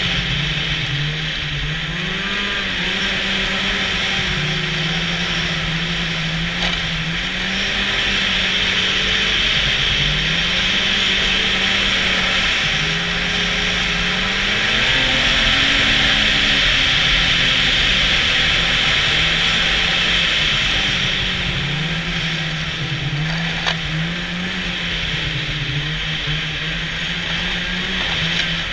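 Snowmobile engine running on the move, its pitch stepping up and down again and again as the throttle changes, over a steady high hiss.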